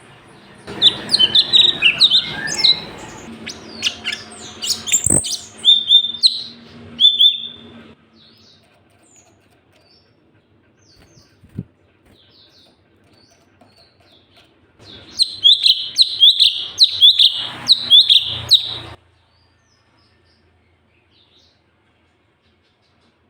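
Cucak cungkok singing in two loud bouts of rapid, sharply gliding chirps. The first starts about a second in and lasts roughly seven seconds, with a sharp click in the middle. The second starts about fifteen seconds in and runs about four seconds, with quiet between and after.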